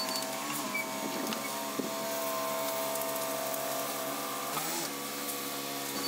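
Ready-mix concrete truck's diesel engine running steadily while it discharges concrete down its chute, its pitch dipping briefly about half a second in and again near the end.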